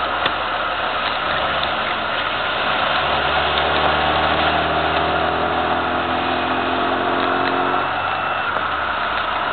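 Inside a 1998 Mini Cooper, its 1.3-litre A-series four-cylinder engine running at speed under a steady hiss of tyres on a wet track. The engine note climbs slightly from about three seconds in and drops away about two seconds before the end.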